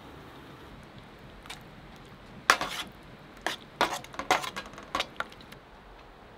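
Utensils clinking and scraping against a metal pan and a small steel cup while food is stirred and served: a run of sharp clinks over about three seconds, the first the loudest.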